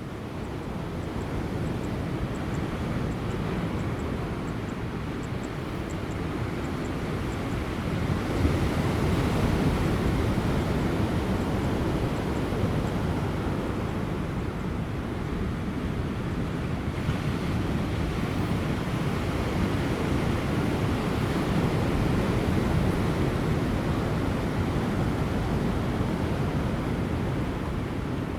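Large ocean waves breaking on offshore rocks: a continuous surf wash that swells about eight seconds in and again a little after twenty seconds.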